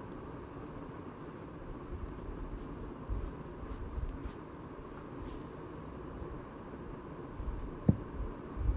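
Quiet room with a steady background hiss, broken by soft low thumps and faint clicks from movement close to the microphone, and one sharp tap shortly before the end.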